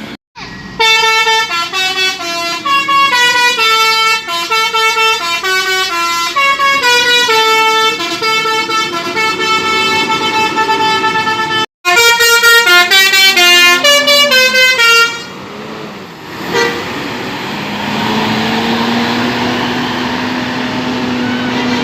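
Bus 'telolet' musical horn playing quick changing-note melodies, in two loud stretches broken by an edit cut near the middle. Near the end the horn stops and the bus engine runs, its tone slowly rising.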